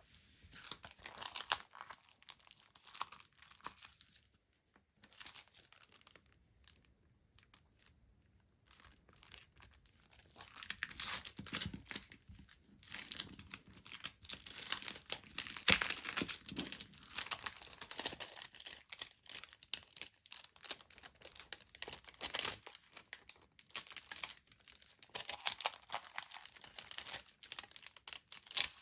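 Stationery packaging being handled and opened: irregular crinkling and rustling with sharp crackles and some tearing. It eases off for a few seconds near the start, then grows denser.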